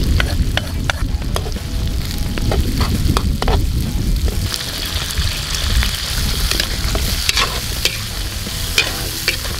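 Oxtail pieces, garlic and onion sizzling in a large metal wok while a metal spatula stirs them, scraping and clinking irregularly against the pan. The sizzle grows stronger about halfway through.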